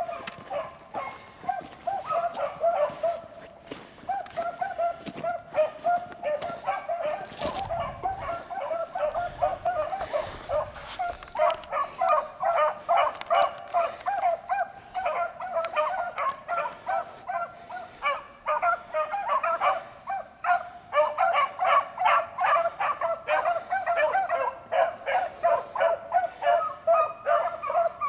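Pack of beagles baying in chorus as they run a rabbit on its scent, voices overlapping thick and fast. The chorus grows louder and denser a little before halfway through.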